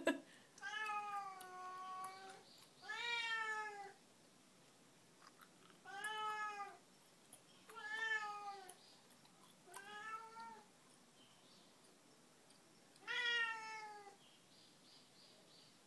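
Domestic cat meowing six times, drawn-out calls a second or more apart, the first the longest, each falling slightly in pitch at the end. It is crying because it is stranded up on a beam and cannot get down.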